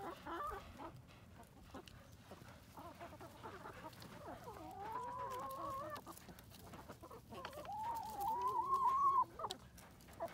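A backyard flock of chickens clucking as they feed, with short calls early on and two long, drawn-out calls about halfway and near the end, the second the loudest.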